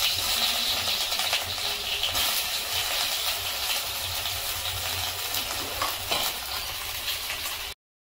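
Sliced onions frying in hot oil in an aluminium kadai: a steady, loud sizzle that breaks off for a moment near the end.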